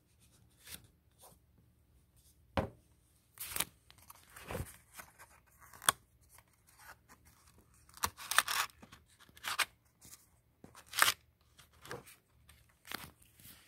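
Stiff paper pages and pop-up card pieces of a pop-up book being handled and turned: irregular rustles and crinkles with several sharp snaps.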